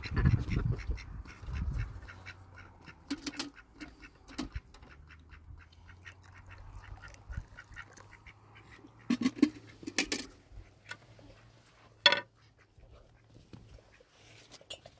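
A few short animal calls, the loudest about twelve seconds in, among scattered clicks and knocks, with a low rumble in the first two seconds.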